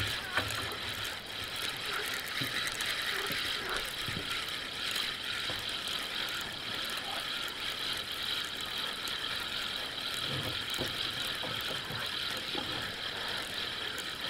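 Fishing reel mechanism clicking and whirring steadily, its gears and ratchet working.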